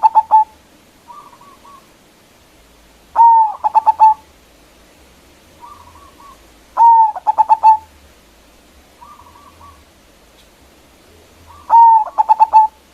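Zebra dove (perkutut) singing its cooing song with a big voice. There are three full phrases, each a loud opening note followed by a quick run of four or five short coos, about every three and a half seconds, with a soft short coo between phrases.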